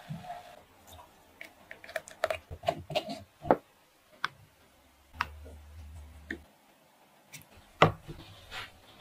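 Scattered light clicks and taps of kitchen utensils and containers being handled, with a brief low hum about five seconds in.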